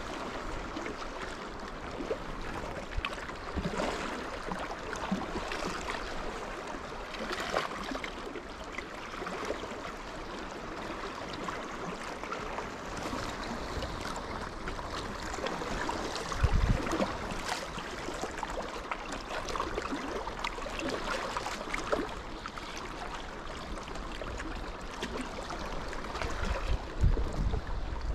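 Small lake waves lapping and splashing against shoreline rocks: a steady wash with frequent little splashes. Low bumps of wind or handling twice, about halfway through and near the end.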